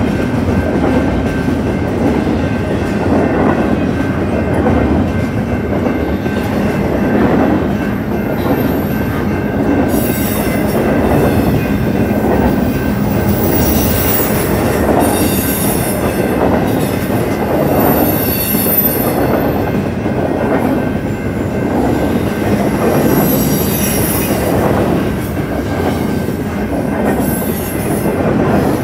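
Union Pacific double-stack intermodal train rolling past at close range, with loud, continuous rumble and clatter of the well cars' wheels and a rhythmic beat as the wheel sets pass. From about a third of the way in, high-pitched wheel squeal comes and goes.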